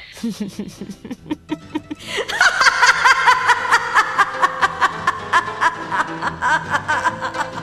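A woman's gloating laugh. It starts as a low chuckle, and about two seconds in it breaks into loud, high-pitched laughter of quick repeated ha's.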